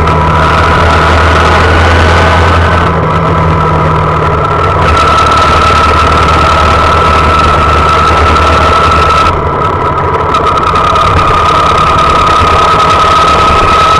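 Honda Monkey's small four-stroke single-cylinder engine running under way, heard from the handlebars. It eases off briefly twice, about three seconds in and again near ten seconds, then picks back up.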